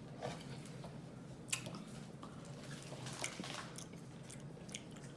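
A person chewing a French fry dipped in queso sauce: quiet, wet mouth sounds with scattered small clicks.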